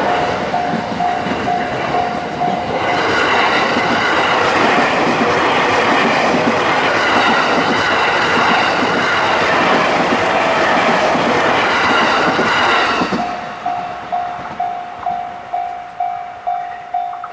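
A JR standard electronic level-crossing alarm pulsing about twice a second, overwhelmed after about three seconds by a passing Uchibo Line train whose wheel and running noise lasts about ten seconds. Once the train has cleared, the alarm is heard again and stops near the end.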